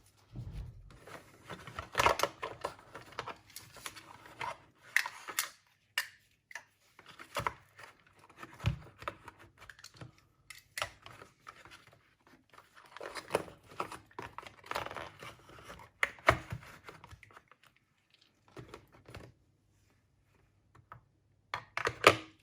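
Small objects being handled on a bench: irregular rustling, clicks and light knocks, with a couple of quiet pauses.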